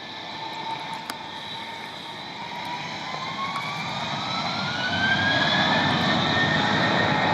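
Jet airliner's engines spooling up to takeoff thrust: a whine rising in pitch and steadily growing louder, with a deepening rumble building underneath in the second half.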